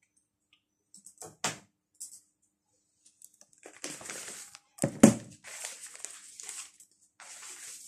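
Rustling and handling noise close to the microphone, with a few light clicks early and one heavy knock about five seconds in, as a person moves right past the recording device.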